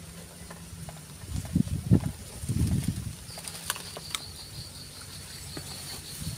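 A metal spoon stirring cut fish in a stainless steel bowl, with dull low bumps and two sharp clinks of spoon on bowl in the middle.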